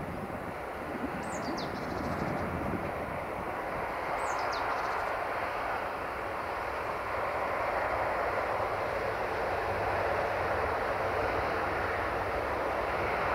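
Siemens Desiro VT642 diesel multiple unit approaching, the steady noise of its engine and wheels growing gradually louder. A bird gives a short, high, falling call twice in the first few seconds.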